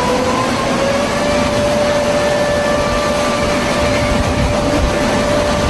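Outdoor warning siren rising in pitch over about the first second, then holding one steady tone, over a steady hiss of background noise.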